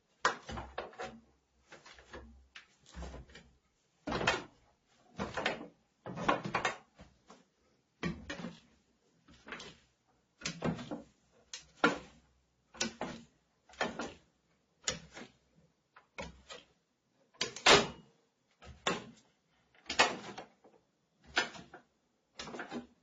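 Barefoot footsteps on wooden stairs, a soft step about once a second, with the treads creaking and squeaking under the weight.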